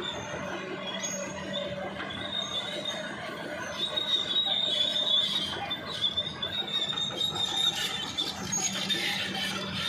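Bulldozer working: its engine running with a steady hum under a high-pitched metallic squeal from the crawler tracks, loudest about halfway through, with scattered clanks.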